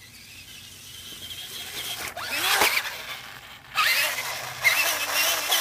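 Battery-powered RC truck's electric motor and gears whirring, pitch wavering with the throttle, as it reverses and its tires spin in loose sand, spraying dirt. It builds over the first two seconds and dips briefly just before the four-second mark, then picks up again.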